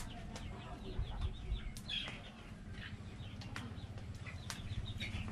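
Birds calling in short, quickly repeated high chirps, with scattered sharp clicks and knocks.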